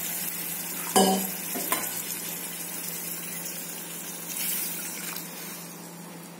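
Stuffed bitter gourds sizzling in hot oil in a metal kadhai, a steady frying hiss with a sharp clink of metal on the pan about a second in. About four seconds in the hiss briefly swells as liquid masala is poured into the pan.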